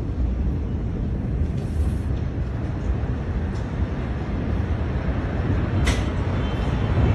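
Steady, heavy low rumble from the Beirut port explosion, picked up on a phone microphone, with a sharp crack about six seconds in.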